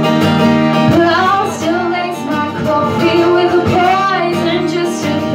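Live acoustic duo: a young woman singing a melody over a strummed acoustic guitar. The guitar plays throughout and her voice comes in about a second in.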